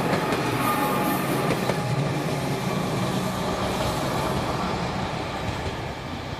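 A Czech passenger train, its tail a Class 854 diesel railcar, passes over the level crossing and pulls away. Its wheel and running noise fades steadily over the last few seconds.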